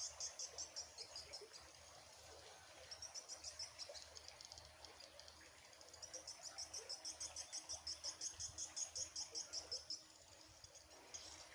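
Faint, high-pitched chirping in fast runs of about five pulses a second, pausing between runs, from small wild animals.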